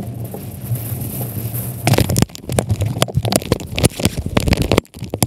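A steady low hum, then from about two seconds in a rapid, irregular run of clicks, knocks and scrapes from a GoPro action camera being handled close up.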